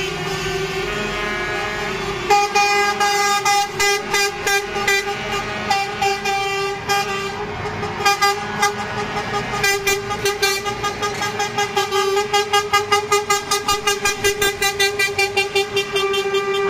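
Truck horns honking as a convoy of lorries passes: one horn held steady throughout while others sound in short repeated toots, which quicken near the end into a rapid series of about four blasts a second.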